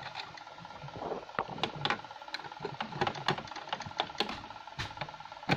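Irregular small clicks and taps of metal parts being handled on a mini sewing machine's needle plate as its screws are set back in, with one sharper knock near the end.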